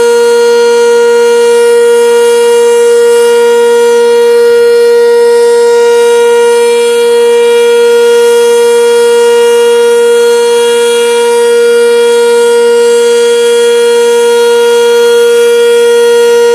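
Sentry 10V outdoor warning siren sounding the Alert signal: one loud, steady tone held at a constant pitch, with no rise or fall.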